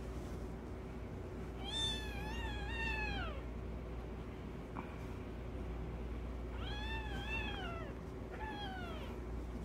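Devon Rex kitten meowing in protest at being pinned and groomed by an adult cat: three high-pitched meows, a long one early and two shorter ones close together near the end.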